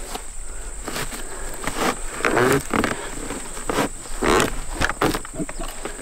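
Twine and dry hay rustling and scraping against the wooden baler as the twine is pulled and twisted tight by hand, in a string of short uneven bursts. A steady high-pitched insect chirring runs underneath.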